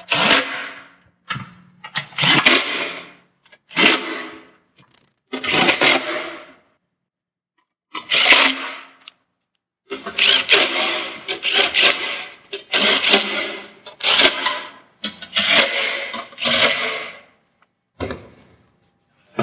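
A power tool motor running in about a dozen short bursts, each a second or so long with short pauses between, as the bolts on a Prius hybrid battery's cover are run down and tightened one after another.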